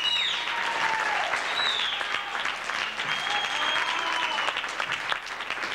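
Audience applauding, with a few high falling calls rising above the clapping.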